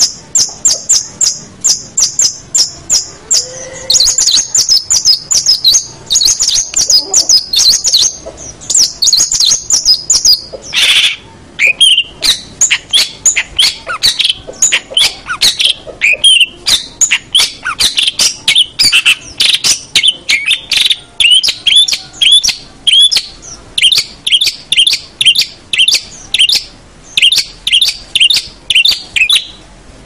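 Long-tailed shrike (cendet/pentet) singing loudly: first a run of sharp, high chirps at about three a second, then denser high trills. Around the middle it changes to a varied, fast run of lower, squeakier notes.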